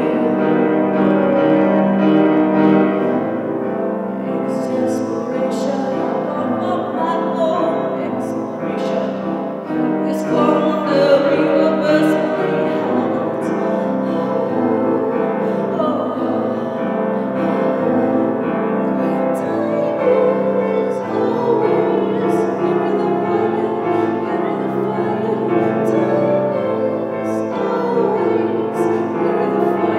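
A woman singing live to her own grand piano accompaniment.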